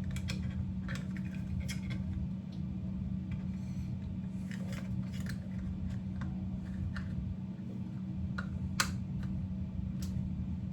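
Scattered small clicks and taps of hands fitting a wiring harness connector into the back of a small RPM display, with one sharper click about nine seconds in, over a steady low hum.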